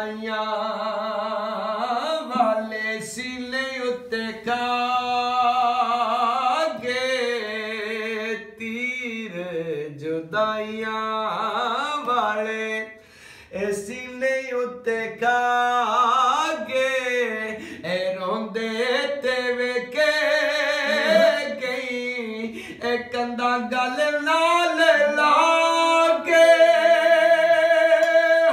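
A man singing in long held notes that waver and bend in pitch, with only brief breaths between phrases. He sets the beat with hand taps on an upturned aluminium cooking pot played as a drum.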